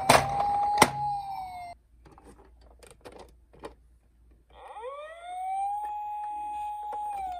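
Toy minicar's electronic wail siren. One wail falls away and cuts off, with two sharp clicks near its start. After a short lull broken by small clicks, a new wail rises, holds steady, and starts to fall near the end.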